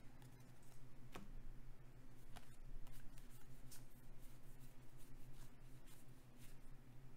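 Magic: The Gathering cards being slid and flicked through by hand: soft, irregular clicks and snaps of card on card over a steady low hum.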